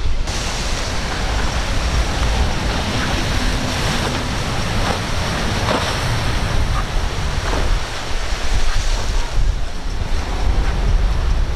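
Ocean waves surging and breaking in rough seas, with strong wind rumbling on the microphone.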